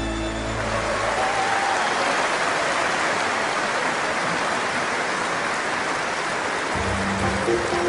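Large arena crowd applauding as a song's last notes die away in the first second; low bass notes of the next song come in near the end.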